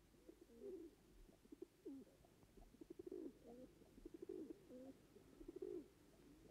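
Faint pigeons cooing: a string of low, rolling coos, one after another.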